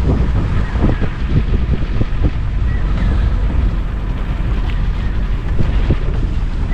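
Gypsy safari jeep driving along a rough forest track: a steady low engine and road rumble with scattered knocks from the jolting, and wind buffeting the microphone.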